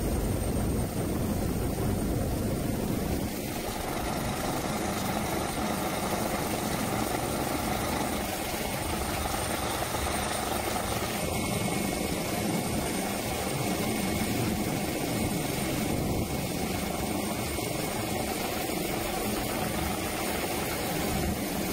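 Helicopter rotor and turbine engine running steadily, heard from on board, with a constant dense noise and a low rotor flutter.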